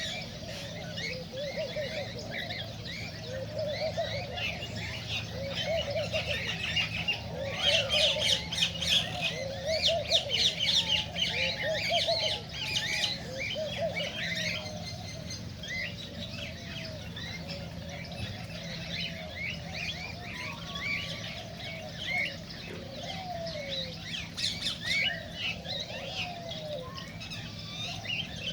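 A flock of cockatiels chirping and calling continuously, many short calls overlapping, busiest about a quarter to halfway through. A steady low hum runs underneath.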